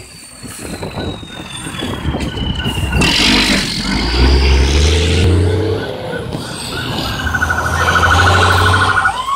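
Passing traffic rumbling by while an emergency vehicle's siren approaches. A slow falling siren tone runs through the first three seconds, and a rapid warbling siren comes about seven seconds in.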